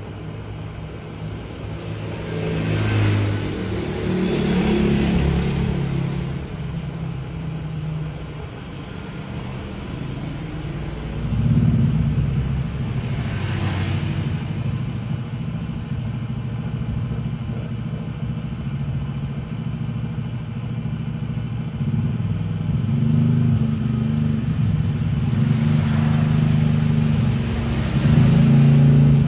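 Motor vehicle engines running, with a low steady drone and several swells in loudness, like vehicles passing close by.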